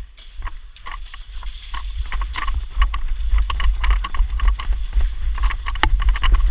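Irregular knocks, clicks and rattling of a player's gear as they move, with footsteps and a heavy low rumble of handling and wind on the body-worn camera microphone, growing louder about two seconds in.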